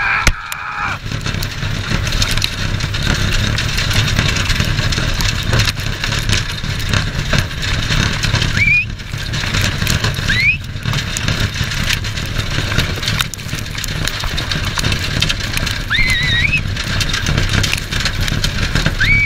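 Wind buffeting the microphone over a continuous rumble of hooves and wheels as a horse-drawn racing cart runs at speed over a dirt track. A few short rising high-pitched calls cut through, about a third of the way in and again near the end.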